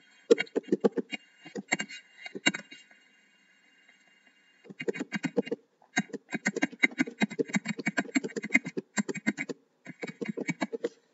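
Rapid typing on a computer keyboard, a quick run of key clicks. It pauses for about two seconds near the middle, then goes on.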